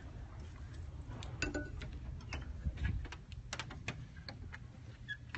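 Scattered light clicks and knocks over a low rumble: handling noise from a phone carried by someone walking through a doorway.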